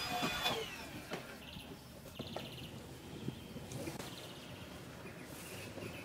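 A cordless stick vacuum's motor whine cuts off about half a second in and winds down. After it come soft knocks and rustling with a few short, faint squeaks as a rug is handled and rolled up on a tiled floor.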